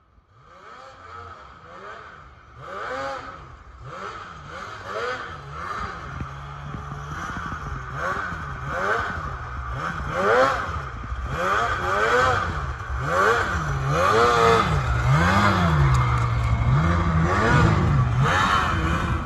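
Snowmobile engine revving up and down over and over, about once a second, as the sled works through deep snow; it grows louder as the sled comes closer.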